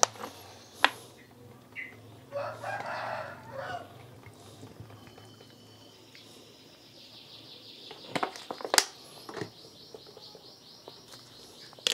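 A rooster crowing in the background about two and a half seconds in, followed later by a faint, rapid high chirping, with a few sharp knocks.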